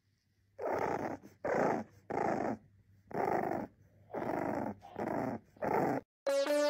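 A bulldog puppy makes a string of about seven short, rough grumbling growls, each about half a second long. Piano-like music starts near the end.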